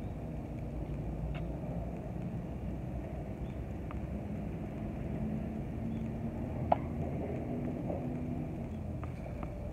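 Steady low outdoor rumble with a few faint ticks and one sharp, loud pop about two-thirds of the way through: a tennis ball on a hard court, bounced or struck by the racket.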